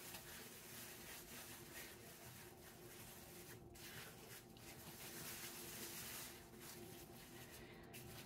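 Faint rustling of a plastic shower cap as hands pull and smooth it into place on the head, barely above room tone.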